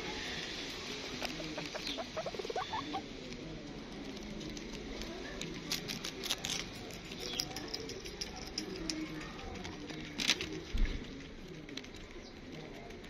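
Pet hamster scrabbling and rustling, with many small clicks and a few short high squeaks. Two louder knocks come a little after ten seconds in.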